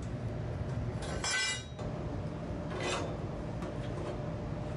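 Hands working the valves and metal piping of an old gas tank water heater while it is shut off and drained. A short squeaky scrape comes about a second in and a brief rasp near three seconds, over a steady low rumble.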